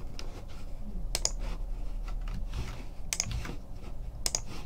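Typing on a computer keyboard: scattered keystrokes, with louder double clicks about a second in, about three seconds in and near the end.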